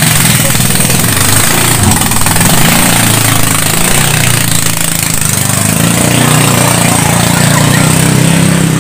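18 hp Dura Guard (Ducar) gasoline engine on a small racing boat running hard at speed during a test run. A loud, steady engine note.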